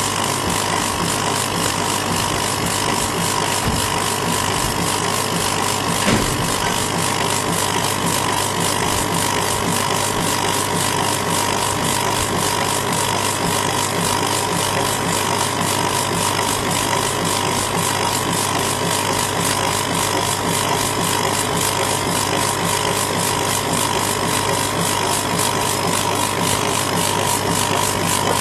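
Laser engraving machine raster-engraving a rubber stamp sheet, its head shuttling rapidly back and forth: a steady mechanical whine with a fast, even ticking over a low hum, and one slightly louder click about six seconds in.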